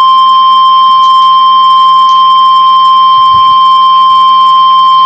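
NOAA Weather Radio 1050 Hz warning alarm tone: a single loud, steady pitch heard through the weather radio receiver. It is the signal that a warning broadcast is about to follow, here a flash flood warning.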